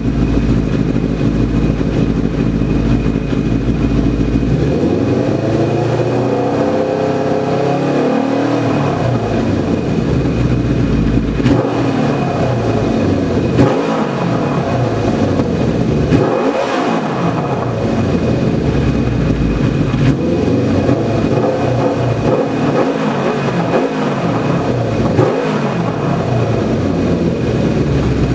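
Kawasaki Zephyr 750's air-cooled inline-four running through NOS 1970s Anderson-Kittelson mufflers on a stainless Black Widow exhaust manifold, picked up by the camera's built-in microphone. It idles, is revved up and down slowly once, then blipped repeatedly with the pitch rising and falling each time, and settles back to idle near the end.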